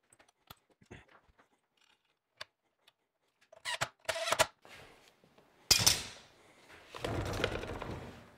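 Cordless drill driving a screw into the plywood stand in short bursts about halfway through, after a few light clicks of handling. Louder handling noise follows in the last couple of seconds.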